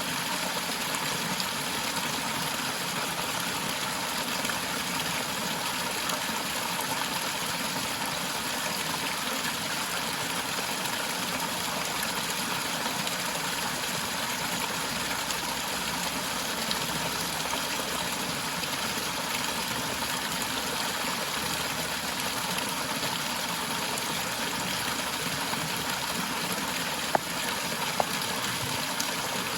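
Waterfall rushing and splashing steadily in an even roar of falling water. Two brief clicks come near the end.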